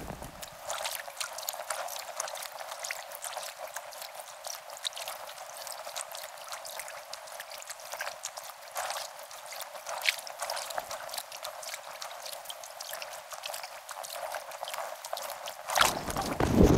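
Sped-up recording of kayak paddling: quick paddle splashes and dripping, trickling water over a steady hiss. A louder low rumble sets in about a second before the end.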